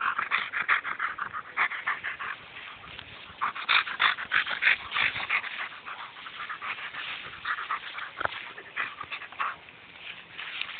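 German shepherd making quick, broken whining and grunting noises while rolling and scratching its back on the grass, with the rustle of grass against its fur. The noises come in louder spells near the start and again around four to five seconds in.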